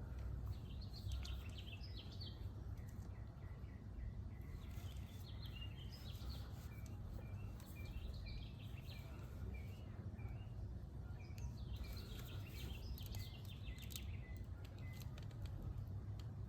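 Birds chirping intermittently over steady low background noise, with a few faint clicks.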